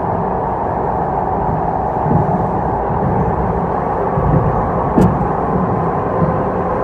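ED4M electric train running, a steady rumble of wheels on rail. A few low knocks come through, and there is one sharp click about five seconds in.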